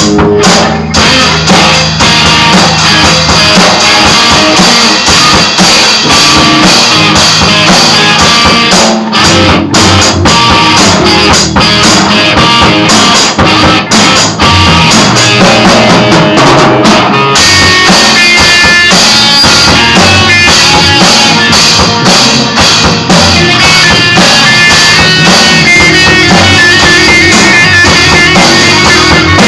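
Amateur rock jam on drum kit and guitar, played loud and recorded through a laptop's built-in microphone.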